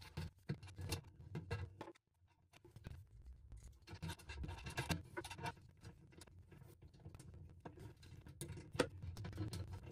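Scattered scraping, rubbing and light clicking of hand work with tools and parts inside a boat's icebox while a fridge evaporator is fitted. It drops to near silence briefly about two seconds in, and a sharp click stands out near the end.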